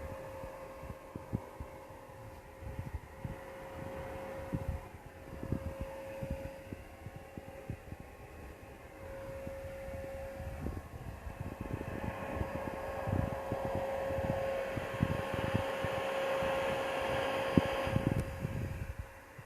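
A 1400-watt vacuum cleaner running on battery power through an inverter, with a steady motor whine and rushing air. The rushing gets louder from about twelve seconds in and falls away just before the end, while low knocks and bumps come and go throughout.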